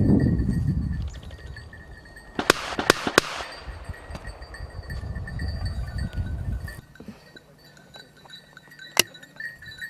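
Three quick sharp cracks come about two and a half seconds in. A single shotgun shot follows near the end. A small bell, of the kind hunting dogs wear, tinkles faintly and steadily under a low rumble at the start.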